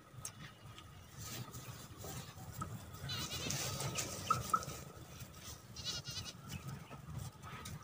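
Faint outdoor background noise with warbling animal calls, a few seconds in and again about six seconds in, and two short chirps between them.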